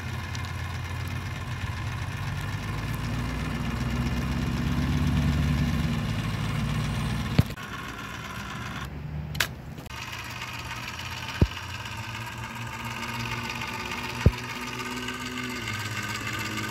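Battery-powered caulking gun running steadily as its motor drives urethane adhesive out of the tube onto the windshield frame, with a few sharp clicks.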